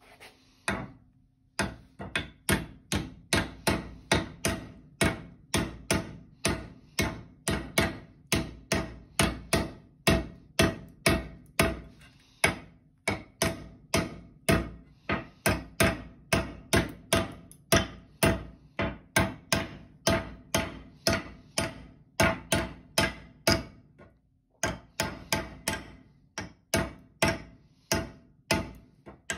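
Hammer striking the steel axe head over and over, about two blows a second, each with a short metallic ring. The blows break off briefly about 24 seconds in.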